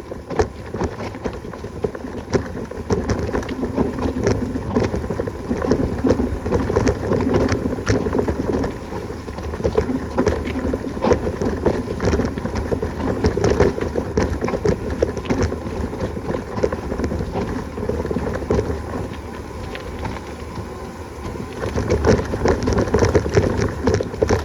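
Wind buffeting the microphone, with dense rattling and crackling all through, as from a bicycle ridden over a rough dirt trail.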